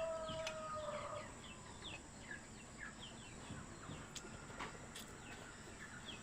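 Chickens calling faintly: one drawn-out call fades out about a second in, over a steady run of short, high, falling chirps, several a second.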